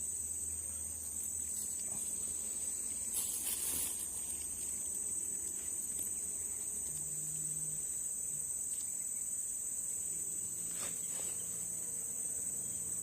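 Steady high-pitched chorus of insects, such as crickets or cicadas, with a brief noisy rustle about three seconds in.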